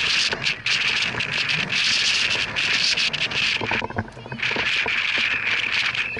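Gusty wind noise on the microphone, with faint, distant voices of players calling out about four seconds in.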